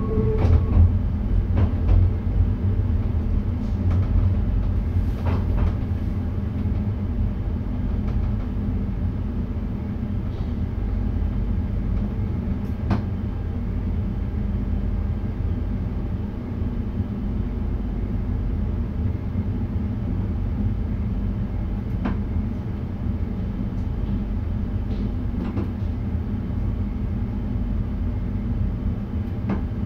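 Steady low rumble inside the driver's cab of an NS VIRM double-deck electric train, with a few faint clicks.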